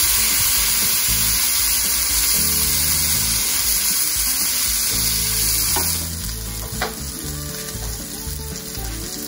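Filet mignon searing in hot butter in a cast iron skillet: loud, steady sizzling that drops to a quieter, crackling sizzle about six seconds in.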